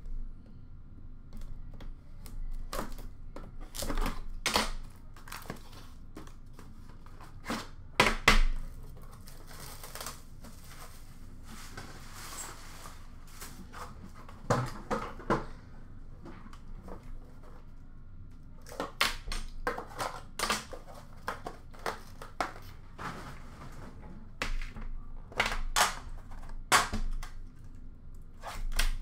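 Handling of an Upper Deck The Cup hockey card box and its metal tin: scattered clicks, taps and knocks of cardboard and tin being handled and set down on a glass counter, with a soft rustle of packaging for a few seconds near the middle.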